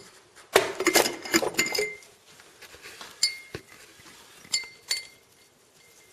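Glass jar clinking and scraping against stones: a dense rattle of knocks in the first two seconds, then a few single clinks, some leaving a brief glassy ring.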